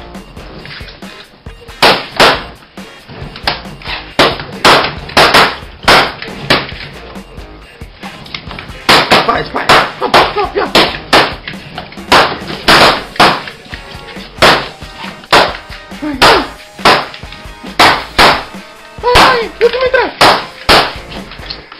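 Balloons bursting one after another as a dog pops them: sharp, loud pops at an irregular pace, often several a second.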